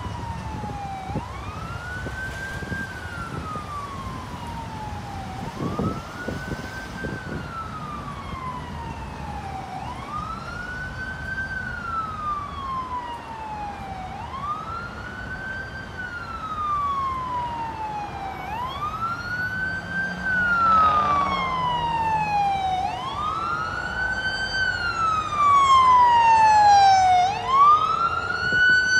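Ambulance wail siren, its pitch sliding slowly up and down about every four and a half seconds and growing louder in the second half as the ambulance comes closer.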